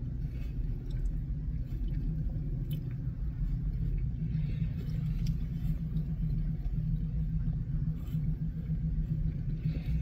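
Steady low rumble of an idling car engine heard inside the cabin, with faint scattered clicks and smacks of chewing.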